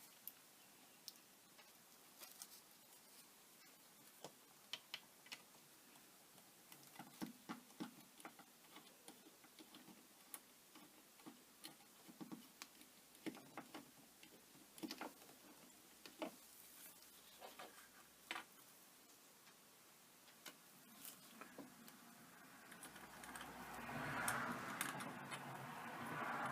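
Faint scattered clicks and taps of small tools and plastic drone parts being handled while a DJI Phantom 3 Pro is taken apart, with a louder rustling scrape near the end.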